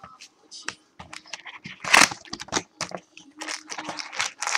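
Trading-card packaging being torn open and handled: irregular crackles, crinkling and tearing of wrapper and cardboard, with a louder rip about two seconds in and a run of crinkling near the end.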